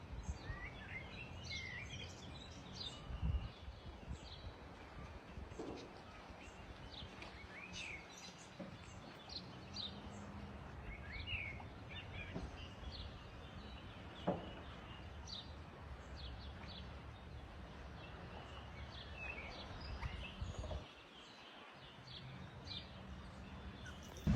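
Small songbirds chirping and twittering in short, scattered calls over a steady low background rumble, with one sharp tick about two thirds of the way in.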